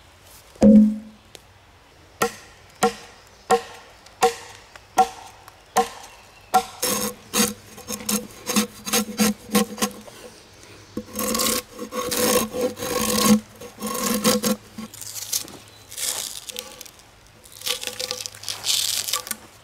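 A drawknife shaving bark off a log in repeated pulling strokes. After a single low knock about a second in, there are short sharp strokes a little under a second apart, then faster strokes, then longer scraping strokes that peel the bark away.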